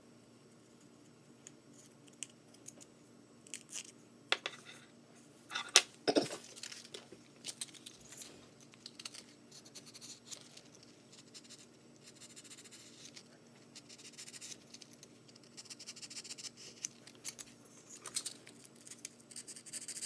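Hand sanding a basswood bird carving's tail feathers with a small piece of sandpaper, flattening each feather. A few sharp scratches and knocks come about four to six seconds in, followed by faint, irregular rubbing strokes.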